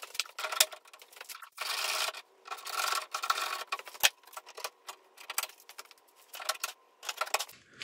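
Handling noise from a person moving about and working on parts: rustling and rubbing with scattered light clicks and knocks, and two longer scraping rustles about one and a half and three seconds in.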